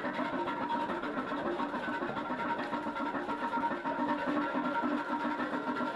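Background music with a run of short, evenly repeated notes.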